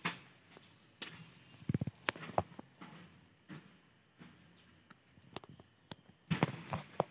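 Faint steady high-pitched insect chirring in the background, with scattered clicks and light rustles from handling and footsteps close to the microphone, bunched together near the end.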